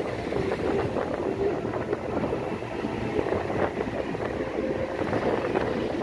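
Steady rumble of a vehicle driving along a rough dirt road, engine and road noise mixed with wind buffeting the microphone.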